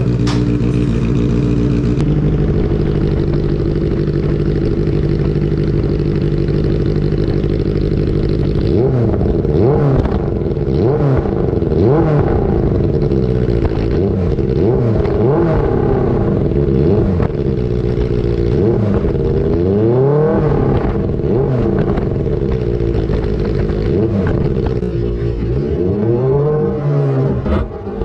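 Benelli TNT 600i's inline-four engine through an IXIL aftermarket exhaust with the dB killer removed, idling steadily, then revved in a string of quick throttle blips from about nine seconds in, the pitch rising and falling every second or two.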